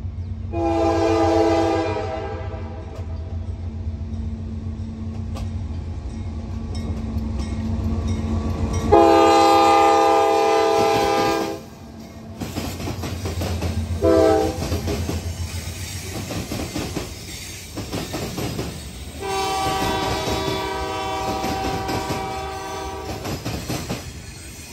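A CSX freight diesel locomotive's air horn sounds the grade-crossing signal: long, long, short, long. The low engine rumble runs under the first two blasts. From about halfway in, freight car wheels clack over the rail joints and the diamond crossing.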